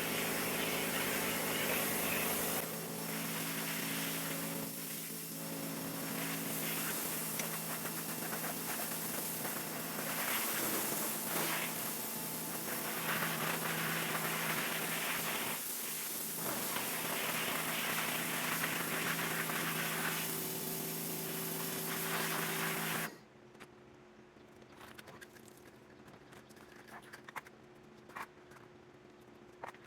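Pressure washer running: a steady pump hum under the hiss of the water spray striking plastic blinds, which cuts off suddenly about 23 seconds in, leaving a quiet background with a few faint clicks.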